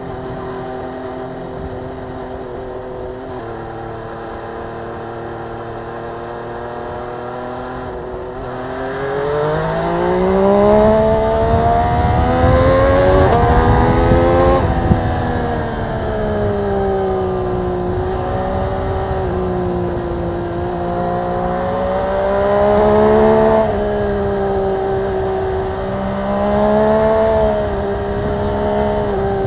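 MV Agusta Brutale 800RR's inline three-cylinder engine heard from on the bike: it runs steadily for about eight seconds, then the revs climb hard under acceleration and fall sharply about fifteen seconds in. After that it rises and eases off twice more.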